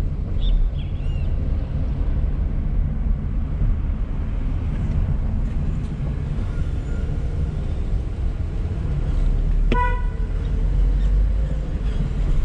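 Steady low engine and road rumble inside a car driving slowly along a town street, with one short car-horn toot near the end.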